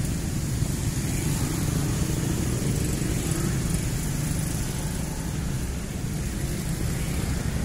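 Steady low rumble of a diesel locomotive moving away along the track.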